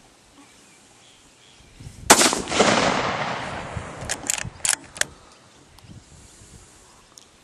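A single shot from a scoped .222 Remington rifle about two seconds in, its report rolling away over about two seconds, followed by four short, sharp clicks.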